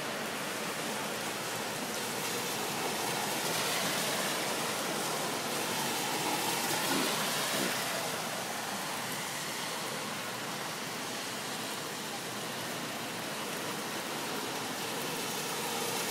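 Steady hiss of rain falling during a thunderstorm, even throughout with no thunderclap.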